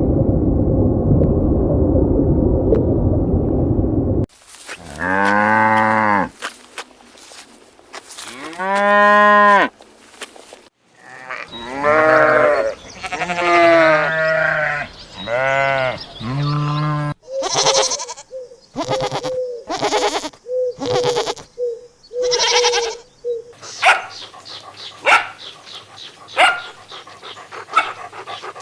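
A rough low sound for about the first four seconds, then livestock calling one after another in a run of drawn-out, rising-and-falling bleats. Near the end come short, sharp clicks.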